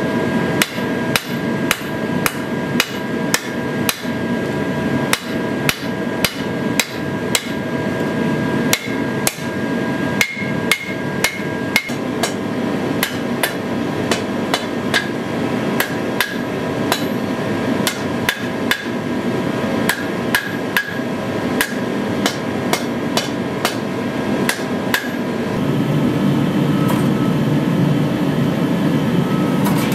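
Hand hammer blows on a red-hot steel sword blade on an anvil, about two a second, slightly irregular, over a steady background hum. About 25 seconds in the blows stop and a steady machine rumble starts.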